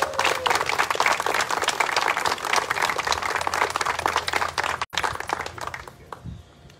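Small crowd applauding, with dense clapping that thins out and dies away about five to six seconds in.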